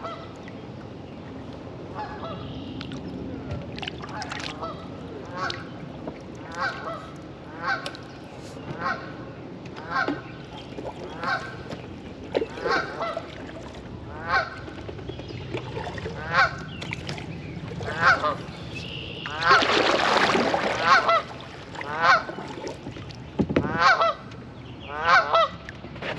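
Goose honking over and over, roughly one call a second. About three-quarters of the way through comes a louder flurry of overlapping honks with a rushing noise.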